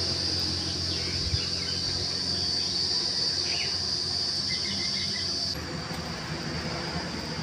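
Insects shrilling in one steady, high-pitched drone, which drops in level about five and a half seconds in, over a low steady hum and a few faint chirps.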